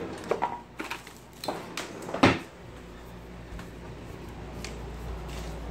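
A handful of short knocks and clatters of household handling while a tape measure is fetched, bunched in the first two and a half seconds with the loudest about two seconds in, then only a low hum.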